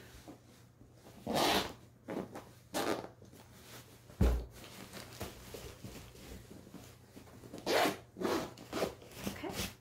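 Zipper on a fabric pillow cover being pulled closed in several short strokes, a pair early on and a quicker run near the end. A single dull thump about four seconds in is the loudest sound.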